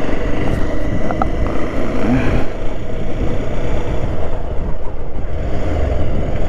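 A motorcycle engine running steadily as the bike is ridden along, with a continuous low rumble throughout.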